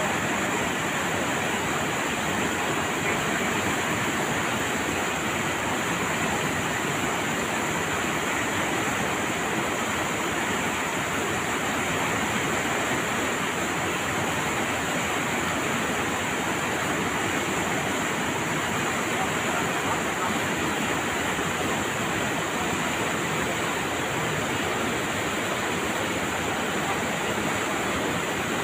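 Fast river rushing steadily over rocks and rapids.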